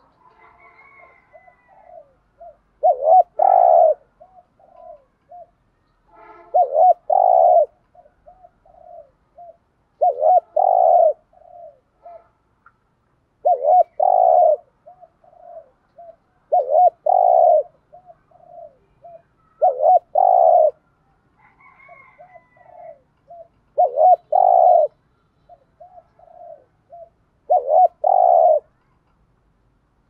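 Spotted dove cooing in the driving 'thúc gù' style: eight loud phrases spaced about three to four seconds apart. Each phrase is a strong double coo followed by a string of short, softer coo notes.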